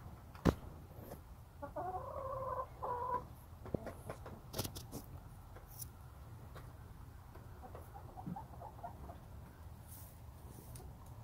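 Hen clucking: one drawn-out call a couple of seconds in and fainter short clucks later, with sharp taps of its beak pecking at a plastic feeder, the loudest tap about half a second in.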